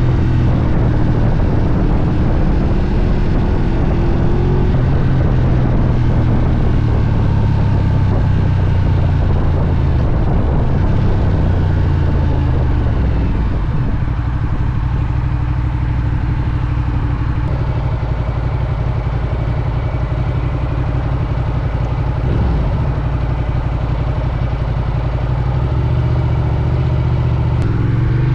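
Ducati Diavel's Testastretta V-twin engine running while the bike is ridden; its pitch drops as the bike slows about ten seconds in, holds steady while cruising, and rises again near the end as the throttle opens.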